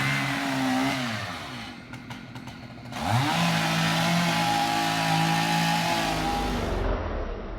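Chainsaw engine revved to full throttle in two bursts: high at first and easing off about a second and a half in, then revved up again about three seconds in and held steady until it drops off near the end.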